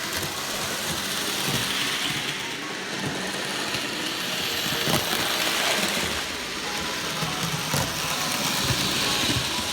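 HO scale model train running along the track: a steady whirring, rattling run of motor and wheels on the rails, with a couple of sharper clicks.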